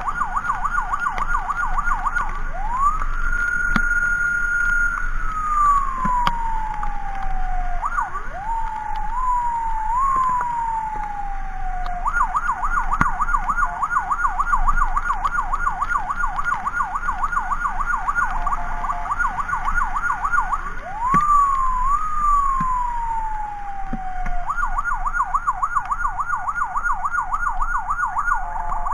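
Electronic emergency vehicle siren cycling through its modes: a rapid yelp, then a rise to a held high note that falls away in a long wail, a few short stepped rises, the rapid yelp again, another rise and fall, and the yelp once more near the end.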